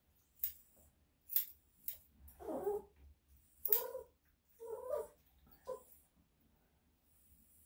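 Small Bichon–Shih Tzu dog whining and grumbling in four short complaints while the hair on its front paw is trimmed. Sharp snips of grooming scissors sound between them, three in the first two seconds.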